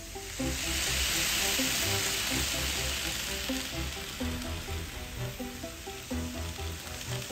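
N-gauge model train running past close by, a hissing rush of wheels on track that swells about half a second in and fades after about three seconds. Background music with short melody notes and a steady bass pulse plays throughout.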